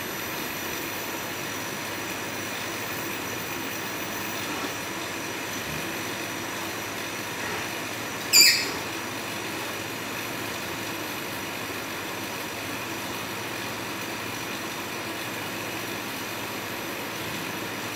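Steady mechanical hum of a benchtop pick-and-place robot at work placing mosaic tiles, with a few faint high whines. One sharp, short burst of sound cuts in about eight seconds in, while the tool head is lowered to the board.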